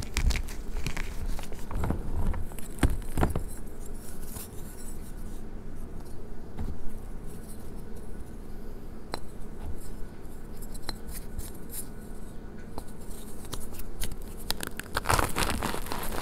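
Reformed gym chalk crumbling and crunching in the hands: a run of dry crunches and cracks in the first few seconds, then only light scattered ticks and rubbing, then dense gritty crunching near the end as chalk is squeezed between the palms.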